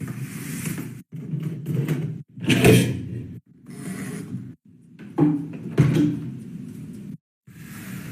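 Knocks and clatter of objects being moved, in short stretches broken by several abrupt cuts to silence.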